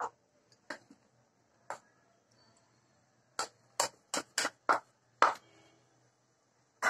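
Wooden spoon knocking against ceramic dishes while stirring batter: a few single sharp taps about a second apart, then a quick irregular run of knocks in the second half.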